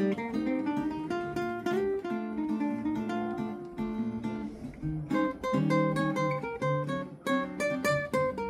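Two acoustic guitars played together: strummed chords under picked melody notes, the strumming getting more pronounced about halfway through.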